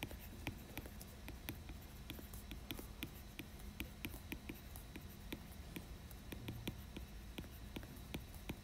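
Stylus tapping and ticking against a tablet's glass screen during handwriting: faint, irregular light ticks a few times a second, over a faint steady hum.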